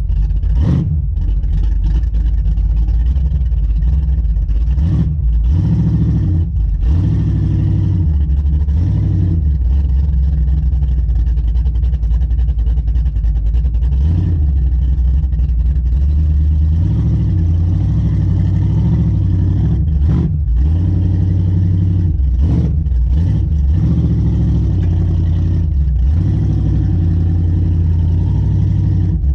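A vehicle's engine running loud and steady while driving, its pitch rising and falling repeatedly as the throttle changes.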